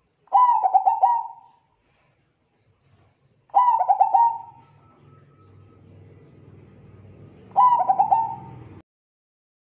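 Zebra dove (perkutut) singing its staccato cooing song: three bursts of quick, ringing coos, about three and a half seconds apart.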